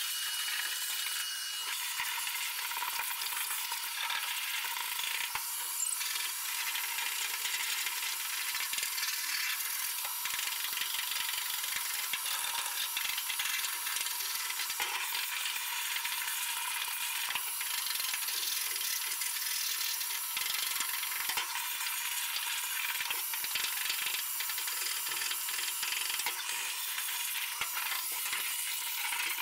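Vacuum cleaner running steadily, its hose sucking up loose debris that rattles and clicks through it. It switches off at the very end.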